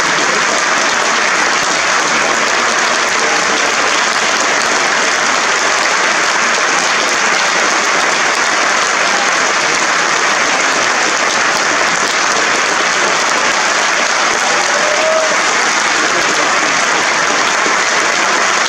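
Theatre audience applauding steadily, a dense, unbroken clapping.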